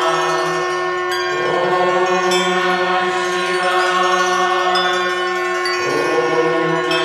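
Instrumental opening of a Shiva bhajan: a steady drone with bells struck now and then. Twice, about a second in and again near the end, a note swells and rises in pitch.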